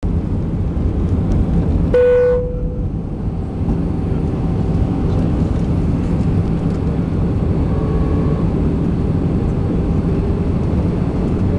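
Airbus A320 cabin noise during descent: a steady low rush of airflow and jet engines. About two seconds in, a single ringing chime sounds over it and fades out within about a second.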